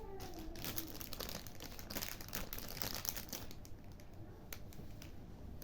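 Packaging crinkling and rustling in hand as a parcel is unwrapped, busiest in the first three seconds or so and lighter after.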